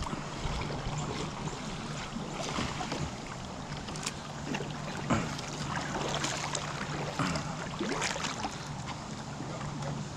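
Kayak paddling on a river: the paddle blade dipping and water splashing and dripping in soft, irregular strokes over a steady hiss of moving water and wind.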